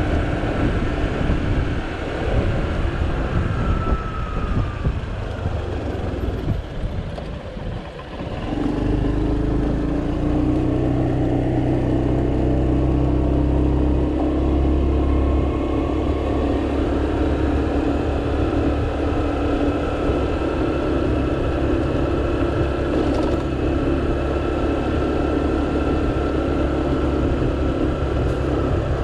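Small motor scooter of up to 125 cc riding, its engine mixed with wind rushing over the microphone. It eases off around seven seconds in, then picks up again and runs on at a steady pitch.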